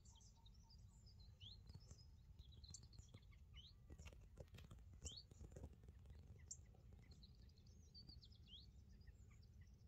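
Near silence: faint birdsong, many short, high, rising chirps scattered throughout, over a steady low background rumble.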